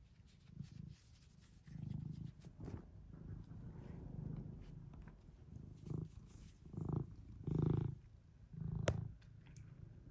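Domestic cat purring close to the microphone, the purr swelling and fading in pulses with each breath. A single sharp click comes about nine seconds in.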